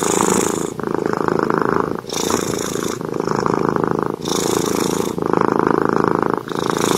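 Domestic tabby cat purring steadily while being stroked. The purr rises and falls with each breath in and out, a full breath about every two seconds.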